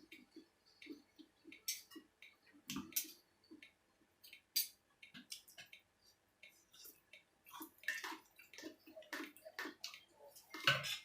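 Eating sounds: irregular small clicks and taps of utensils and dishes mixed with wet mouth and chewing noises, coming thicker about eight seconds in and again near the end.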